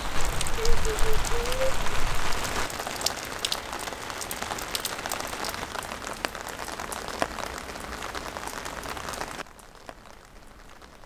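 Rain falling: a steady patter with scattered sharp drips. It gets softer a couple of seconds in and drops away abruptly near the end.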